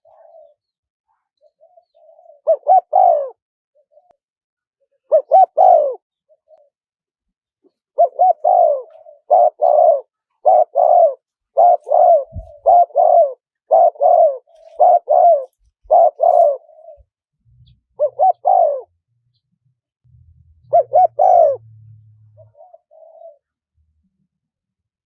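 Spotted dove cooing over and over. A run of about ten coo phrases, roughly one a second, forms the middle, with a few separate phrases before and after and softer coos between them.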